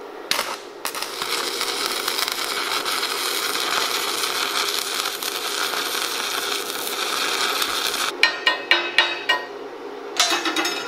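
Stick welding with a small 120-volt DC Forney Easy Weld 100ST. The arc strikes with a short burst just after the start, then burns with a steady crackling hiss for about seven seconds. It ends in a quick run of sharp pops, with one more short burst near the end.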